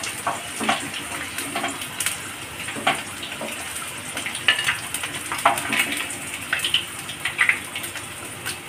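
Battered paneer skewers deep-frying in hot oil: a steady sizzle dotted with frequent sharp pops and crackles.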